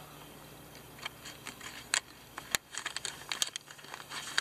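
A paper fee envelope rustling and crinkling in quick, irregular ticks as it is handled and pushed into the slot of a fee box.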